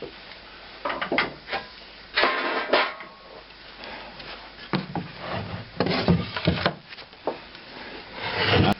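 Wooden guitar body being handled on a workbench: irregular scrapes, rubs and short wooden knocks, in clusters, with a louder scrape just before the end.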